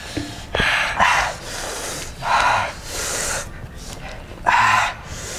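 Sharp, hissing breaths drawn and pushed through the mouth, about four in a row, from men suffering the burn of very hot chili sambal.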